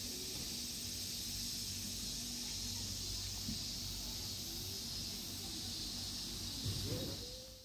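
A steady, high-pitched chorus of cicadas shrilling without a break, with faint low rumble beneath.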